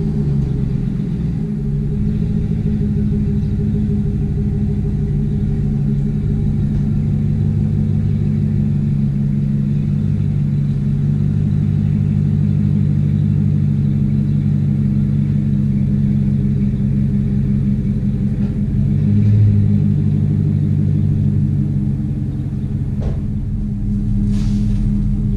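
Pickup truck engine idling steadily just after being started, with a brief swell in level about two-thirds of the way through. A single sharp click comes near the end.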